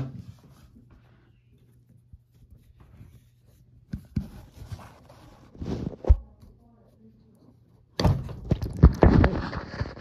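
Handling noise at the base of a front-loading washing machine: a sharp knock at the start, a low steady hum through a mostly quiet stretch, scattered knocks and a heavy thud about six seconds in, then about two seconds of loud rubbing and clattering as the phone is moved and covered.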